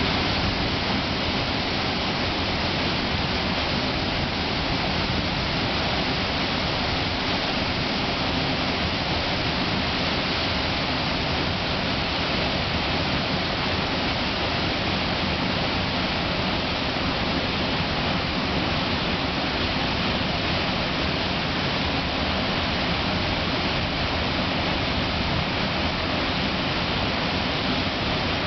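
Waterfall: a large volume of water plunging down a rock gorge into a pool, making a loud, steady rushing noise that does not let up.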